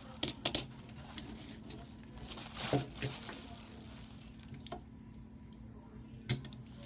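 Plastic bag rustling and crinkling as Hot Wheels die-cast toy cars are handled, with a few sharp clicks of the cars set down on a wooden table and a longer crinkling burst in the middle.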